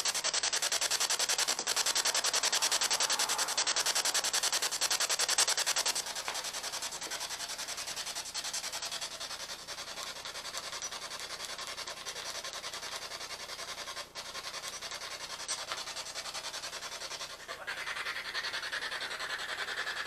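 Spirit box sweeping through radio stations: a continuous hiss of static, rapidly chopped as it scans. It turns quieter about six seconds in and louder again near the end.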